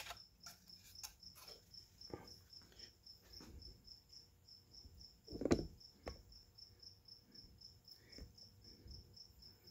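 Faint clicks and knocks of a plastic model truck cab being handled, the loudest a knock about halfway through. Under them runs a steady, faint, high-pitched chirping, about four to five chirps a second.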